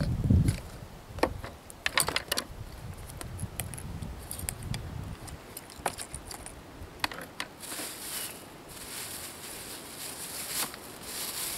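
Small clinks and clicks of containers and utensils being handled on a wooden table, a cluster of several about two seconds in, with plastic-bag rustling in the second half.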